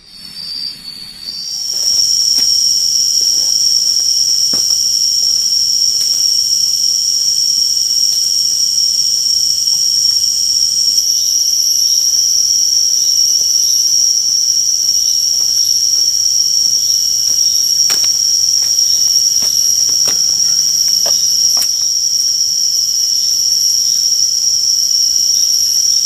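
A loud, steady, high-pitched drone of insects that swells in over the first two seconds, with a few faint clicks over it.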